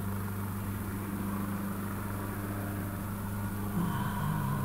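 Steady low engine hum, with a faint higher tone joining near the end.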